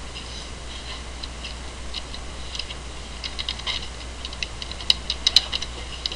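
Irregular clicking of a computer keyboard and mouse, getting quicker and louder about three seconds in, with the sharpest clicks around five seconds, over a steady low electrical hum.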